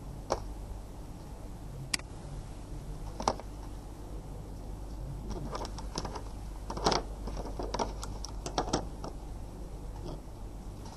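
Scattered plastic clicks and knocks from hands handling a small car-diagnostic interface and its TAG coil cable. Single clicks come in the first few seconds, then a busier run of clicks and clatter in the second half, over a steady low hum.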